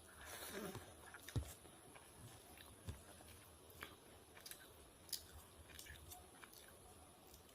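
Faint chewing and mouth sounds of someone eating a rice-and-dal meal, with a soft rustle near the start and scattered small clicks and smacks.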